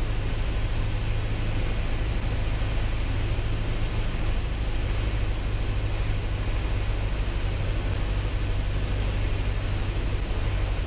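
Piper Cherokee 180's four-cylinder Lycoming engine and propeller droning steadily in flight, heard from inside the cabin with a constant hiss of air.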